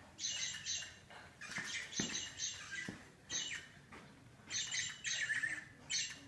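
Robotic toy bird, triggered by sound and light, chirping and twittering in repeated high-pitched bursts, a new group of chirps about every second.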